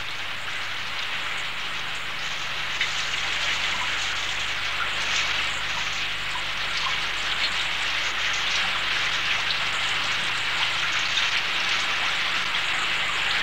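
Steady water noise: a dense, even hiss with scattered small ticks.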